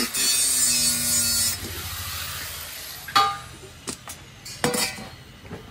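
Angle grinder grinding a stainless steel pot with a loud hissing grind, switched off about a second and a half in and spinning down. A few sharp metal clanks follow.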